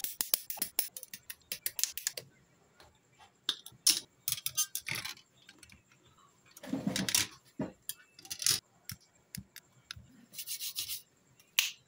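Hard plastic model-kit runners being handled and cut: scattered sharp clicks and clatters of plastic, with the snips of hobby nippers cutting parts from the runner, and a brief rubbing rustle about seven seconds in.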